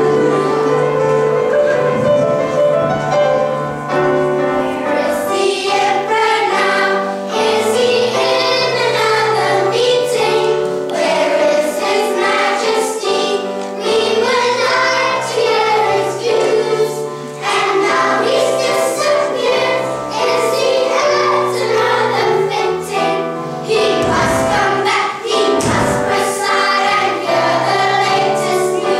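Children's choir singing a song from a school musical, with instrumental accompaniment carrying a stepping bass line.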